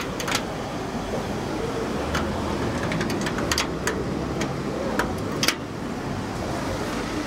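Sharp clicks of an elevator call button being pressed several times, over a steady low rumble.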